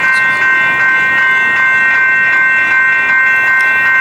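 Railroad grade-crossing bells ringing steadily, about two or three strikes a second, with their ringing tones overlapping, over the rumble of a passenger train arriving at the station.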